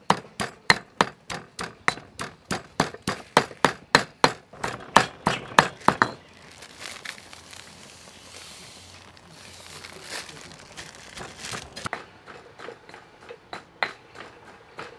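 A pestle pounding chilies and garlic in a stone mortar, about four strikes a second. After about six seconds the strikes turn softer and sparser, then pick up again near the end.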